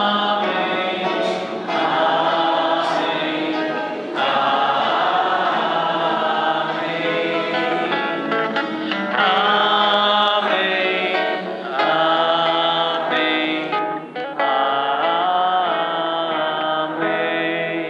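Church choir and congregation singing a liturgical chant together at Mass, in phrases of long held notes.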